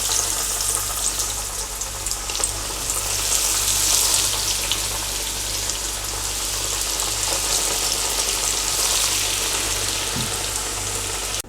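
A breaded mutton roll deep-frying in hot coconut oil in a pan: a steady, dense sizzle and crackle of the oil bubbling around it.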